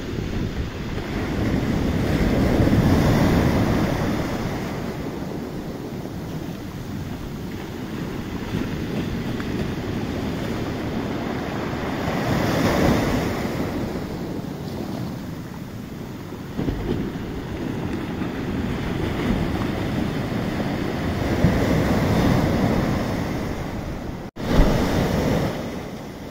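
Sea surf washing up a sandy beach and draining back, swelling with each incoming wave roughly every ten seconds, with wind buffeting the microphone. The sound cuts out for an instant near the end and comes back abruptly.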